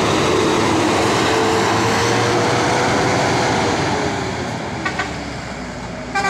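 A big bus's diesel engine labouring up a steep grade close by, steady and loud, then fading after about four seconds as it pulls away. There are short horn toots about five seconds in and again near the end.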